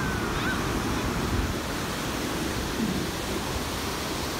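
Ocean surf breaking and washing up the beach, a steady rush of waves.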